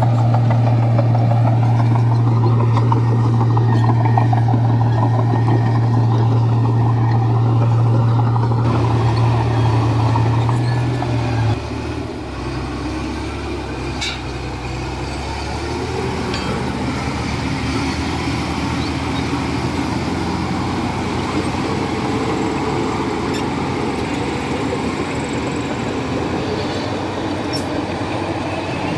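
Komatsu bulldozer's diesel engine running with a strong, steady low drone. About a third of the way in it drops quieter and lower, then runs on steadily.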